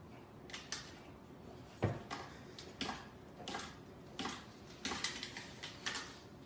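Light, irregular clicks and taps as a French bulldog standing on its hind legs paws at wooden kitchen cabinet drawers and their metal pulls, with one louder knock about two seconds in.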